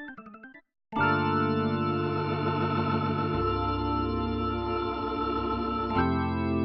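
Organ sound from a keyboard sample library: a falling run of notes fades out, then after a short gap a held organ chord sounds from about a second in, its bass note changing twice.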